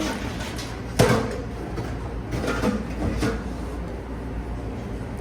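Restaurant serving-counter background: a steady low hum with a single sharp clack about a second in and faint voices in the background.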